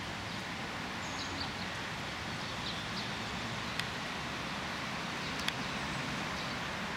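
Steady outdoor background noise with faint, scattered bird chirps and two sharp clicks, one a little before the fourth second and one past the fifth.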